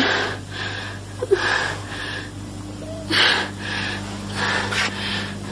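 A woman sobbing: a run of shaky, breathy sobs, about two a second, over a steady low electrical hum.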